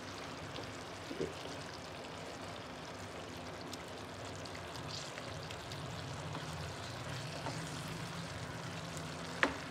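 Thick pumpkin curry sizzling steadily in a nonstick frying pan while a wooden spatula stirs it, with one sharp click near the end.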